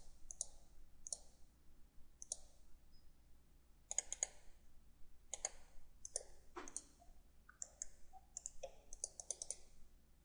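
Computer mouse clicking, faint, in irregular single and paired clicks about every second, with a quicker run of several clicks near the end.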